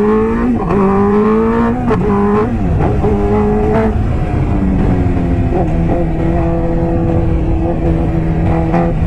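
MV Agusta F4 RC's inline-four engine running under way. Its pitch steps down a few times in the first four seconds as the rider eases off or changes gear, then holds at a steady cruise.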